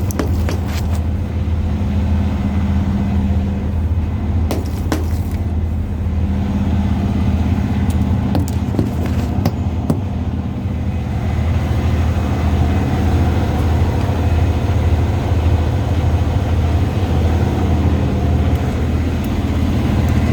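Semi truck's diesel engine running with a steady low drone, and a few short clicks or rattles about five and nine seconds in.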